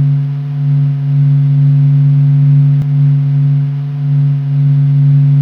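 Sonified space recording presented as the sound of the Sun: a steady low drone of a few held pitches that slowly swells and fades.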